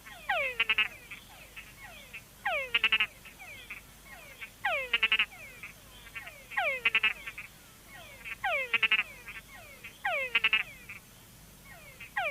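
Túngara (mud-puddle) frogs calling: each call is a falling whine followed by a few short chucks, the complex call whose chucks are deeper in bigger males. A loud call comes about every two seconds, with fainter calls in between.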